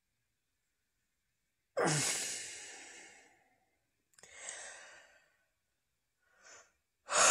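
A man sighing heavily: a loud, breathy, slightly voiced sigh about two seconds in that fades out slowly, a softer exhale a couple of seconds later, a short faint breath, then another loud sigh near the end.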